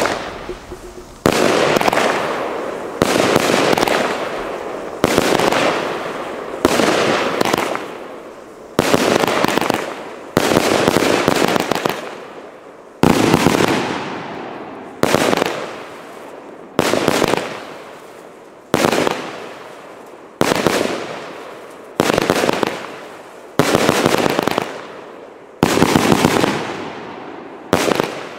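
Firework battery firing shot after shot, about one every two seconds, roughly fifteen in all: each a sharp bang followed by a fading hiss as the stars burn out.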